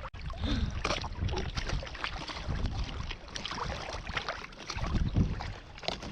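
Lake water lapping and splashing around a paddleboard, with wind buffeting the microphone as an uneven low rumble.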